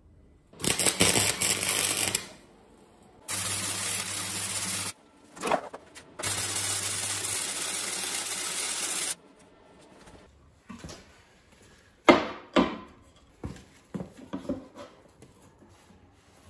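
Electric arc welding steel rod to flat steel bar: three welds, a steady hiss with a low hum underneath, the last about three seconds long. Several sharp knocks follow in the second half.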